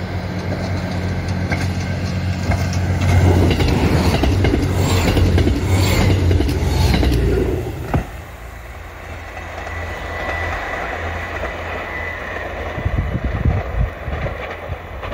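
JR Hokkaido KiHa 183 diesel express train passing through the station at speed. Its diesel engines drone and its wheels clatter over the rail joints, loudest from about three to seven seconds in, then dropping off suddenly as the train goes past and fading into a low rumble. Wind buffets the microphone near the end.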